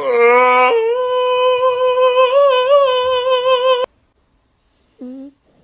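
A woman holds one long open-mouthed sung note for nearly four seconds. The note wavers in the middle and then cuts off suddenly. After a pause there is one short pitched call.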